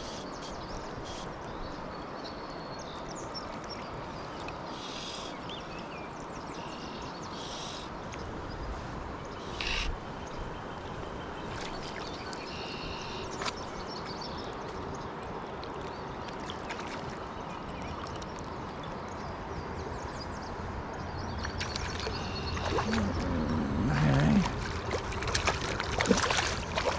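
Fast river water rushing steadily, with small birds chirping in short phrases over it. In the last few seconds it grows louder, with a run of sharp clicks and a short low wavering sound.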